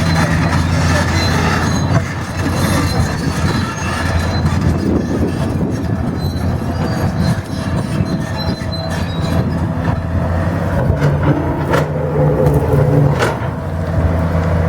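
Heavy diesel machine's engine running steadily with a low hum, with high metallic squeals and a few sharp knocks near the end, typical of a tracked demolition machine at work.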